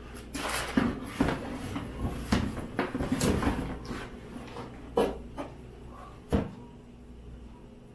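Cardboard kit box and its inner boxes being handled, with plastic parts bags rustling: a string of knocks and scrapes, two sharper knocks about five and six seconds in, then quieter handling.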